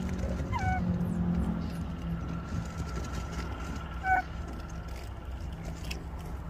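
A steady low motor drone, like an engine running. Two short chirping calls that drop in pitch come through it, about half a second and about four seconds in, and a third starts right at the end.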